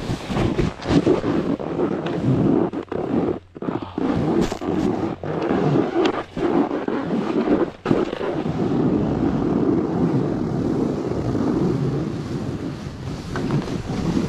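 Wind buffeting the camera microphone and a snowboard scraping over snow during a descent: a loud, rough rushing that cuts out briefly a few times in the first half, then runs on steadily.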